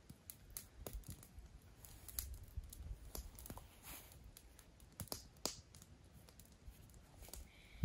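Faint, scattered clicks and light rustling over a low background rumble.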